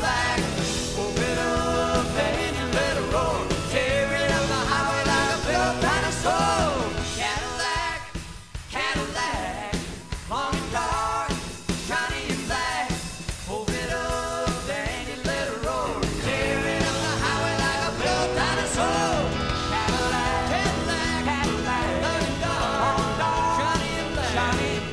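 Rock-style song with a singing voice over a band and a steady beat, dipping quieter for a moment about eight seconds in.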